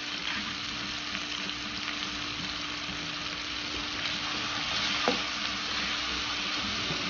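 Onion, capsicum and sauces sizzling steadily in a hot frying pan as they sauté. A faint steady hum runs underneath, and there is a single light tap about five seconds in.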